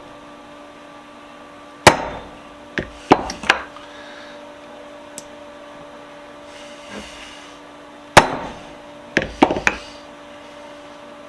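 Hammer blows driving at a stuck part of a cast-iron bench vise: one hard strike about two seconds in followed by three lighter ones, then another hard strike near eight seconds and a quick run of four more.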